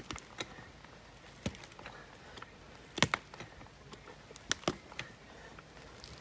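Scattered sharp clicks and cracks, about half a dozen at irregular intervals with the loudest about three seconds in, as a hydraulic floor jack is pumped up under a tree stump and strains the stump and its roots.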